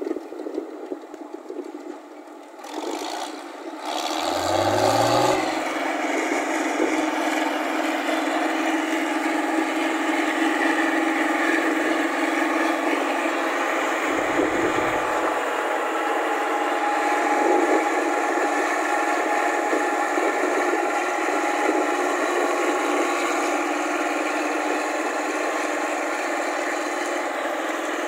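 New Holland 8060 combine harvester's diesel engine, quieter and uneven at first. About four seconds in it rises in pitch as it revs up, then runs loud and steady.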